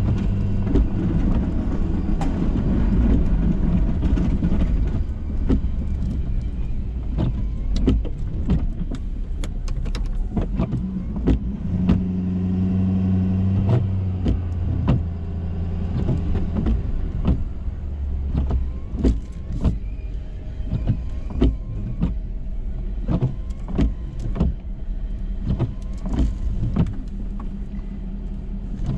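Ford F-350 pickup's engine running steadily, with a swell in engine sound from about twelve to fifteen seconds in. Frequent irregular clicks and knocks sound over it.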